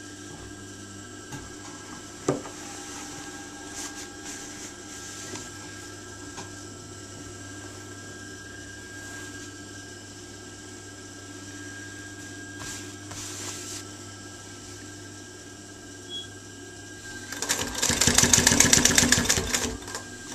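Singer 331K4 industrial sewing machine with its under-table motor running in a steady hum, with a few light clicks. About seventeen seconds in the machine sews fast, a loud rapid run of stitching strokes lasting about three seconds.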